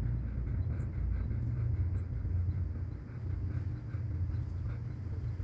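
Low rumble of a motor tanker barge's diesel engine as the barge passes close below, mixed with wind buffeting the microphone.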